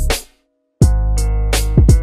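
Background music with drums and a deep bass. It stops dead for about half a second shortly after the start, then comes back in on a drum hit.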